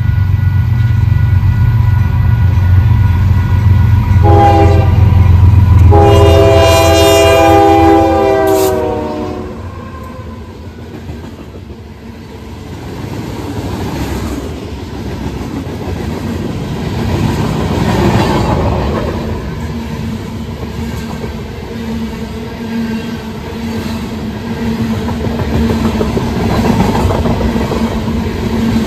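Union Pacific grain train passing: the lead diesel locomotives rumble by and sound their horn, a short blast about four seconds in, then a longer one whose pitch drops as they pass. The rumble then gives way to the loaded grain hopper cars rolling by, wheels clicking over the rail joints.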